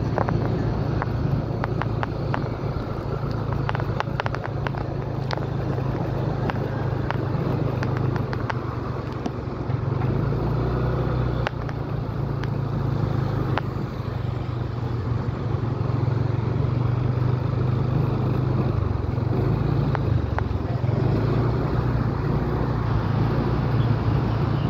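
Motorcycle engine running at a steady cruising pace with wind and road noise, heard from on the moving bike, the engine's low hum holding even throughout.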